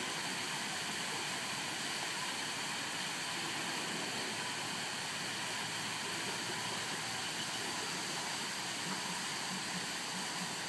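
Steady, even rushing noise with no distinct calls, clicks or other events.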